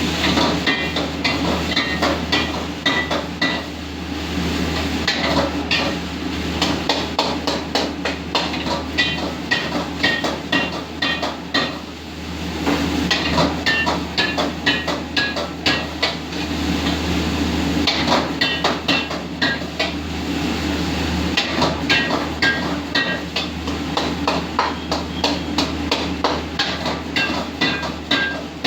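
Metal spatula striking and scraping a wok in quick runs of clangs, several a second, with short pauses between runs, while noodles are stir-fried. A steady low hum runs underneath.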